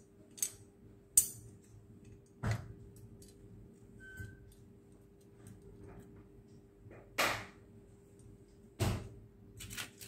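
Handling noise around a phone circuit board clamped in a PCB holder: a handful of separate light clicks and knocks, with a short scrape about seven seconds in. A faint steady hum runs underneath.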